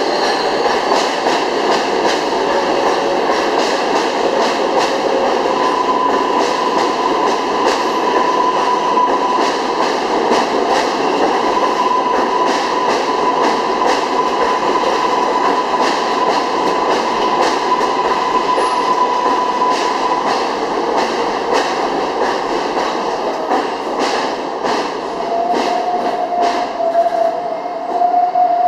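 New York City R142A subway train running alongside the platform, wheels clicking over the rail joints. A steady high whine is heard through the middle and another, lower one near the end.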